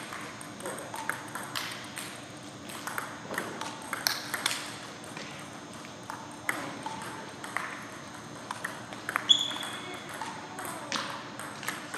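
Table-tennis ball clicking off bats and the table in irregular rallies, several knocks a second at times, in a gym hall. A brief high squeak about nine seconds in.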